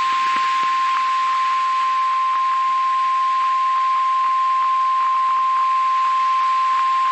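NOAA Weather Radio warning alarm tone: a single steady high tone sounding before a warning message, over the hiss and faint crackle of radio static.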